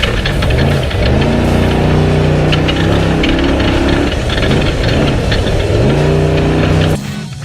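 Off-road race truck's engine running hard. Its pitch climbs about a second in and again near the end as it picks up speed, with knocks and rattles over the rough course. The sound cuts off suddenly just before the end.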